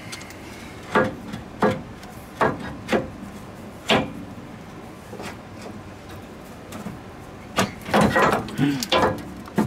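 Metal clunks and knocks of a power steering gear box being worked loose and manoeuvred out from under the car: a few single knocks in the first four seconds, then a quick run of clunks near the end.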